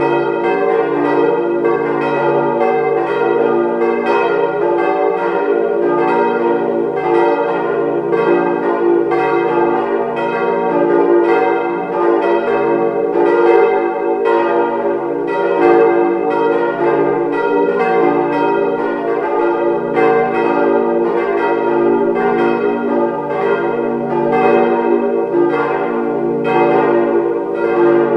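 Four hard-cast-iron church bells by Weule (1949), tuned d', f', g' and b', swinging in full peal with overlapping strokes at a steady level. Their strike tones sit out of line with one another, a distorted strike-tone line in these ageing iron bells.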